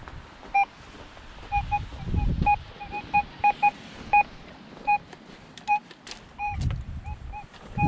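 XP Deus 2 metal detector sounding short, clipped beeps at one mid pitch, many of them in quick irregular runs, as the coil is swept over iron targets. A couple of low rumbles sound about two seconds in and again near the end.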